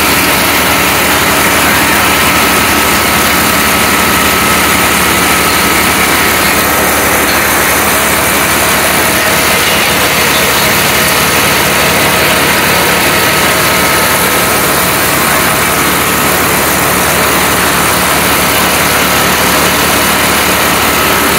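Small lawn mower engine on a homemade pull-behind mower deck running steadily, turning the blade, with a steady high whine over the engine note.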